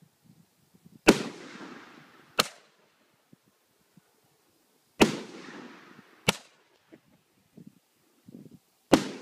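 Aerial fireworks going off: five sharp bangs in pairs about a second and a quarter apart. The first bang of each pair trails off in a long echo.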